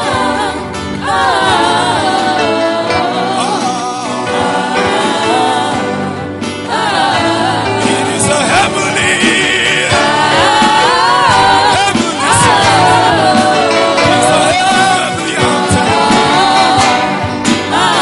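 Live gospel worship music: several singers on microphones over a full band with drum kit, playing continuously.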